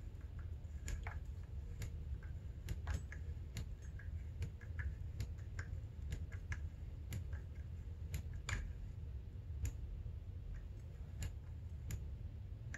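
Compression damping adjuster on a 2003 Honda CR85R fork leg clicking through its detents as it is turned in with a flat screwdriver toward the full-hard position. Light, irregular clicks, about two a second.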